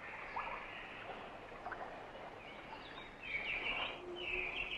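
Outdoor nature ambience: small birds chirping over a steady hiss, the chirps louder and busier about three seconds in.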